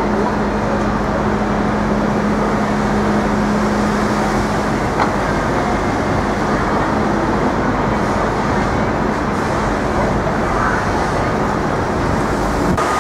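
Dense city street traffic noise, loud and steady, with a low engine hum that fades about halfway through.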